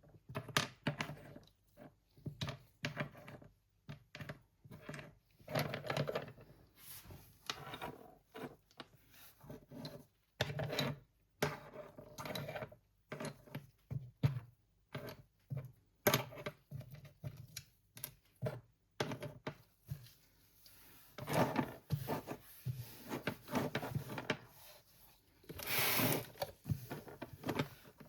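Slate pencils cracking and crunching: an irregular run of sharp, dry clicks and short crunches, close up.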